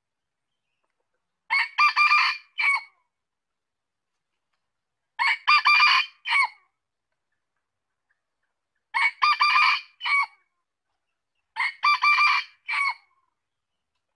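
Male red junglefowl crowing four times, about every three and a half seconds. Each crow is short and broken into three or four clipped parts. It is the cock's territorial call, played as a decoy to lure wild males.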